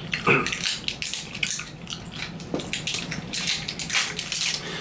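Close-up wet chewing and mouth sounds: an irregular run of soft smacks and clicks as food is eaten.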